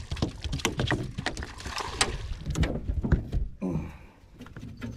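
Quick knocks and clatters on an aluminum boat as a netted trout is brought aboard, thinning out over the last second or so.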